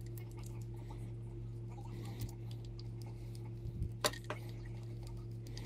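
Light clicks and scraping of a small screwdriver and fingers working on the metal chassis of a Lionel 671 turbine model locomotive, with a sharper click about four seconds in, over a steady low hum.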